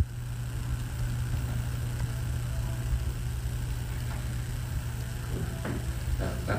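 Steady low hum with a faint hiss above it: room background noise.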